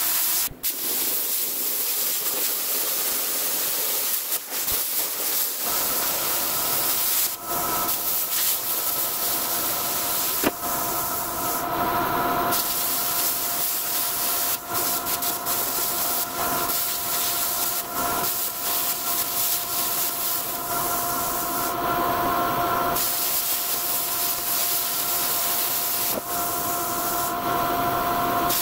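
Plasma cutter running steadily as it cuts through a rusty steel frame: a constant hiss of the air jet with a steady whine, broken by a few brief stops.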